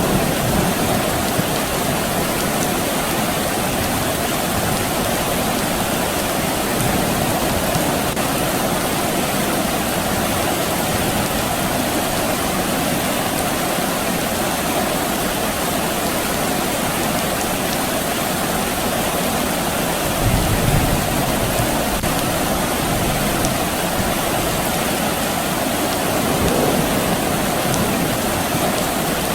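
Steady rain falling. A brief low rumble comes about two-thirds of the way through.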